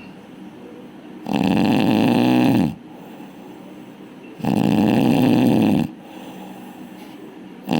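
A person snoring very loudly, with rasping pitched snores about every three seconds: two full snores, a third starting near the end, and softer breathing between them.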